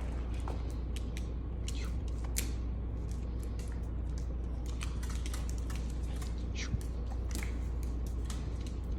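A golden retriever eating treats: irregular, scattered clicks and taps of snapping and chewing, over a steady low hum.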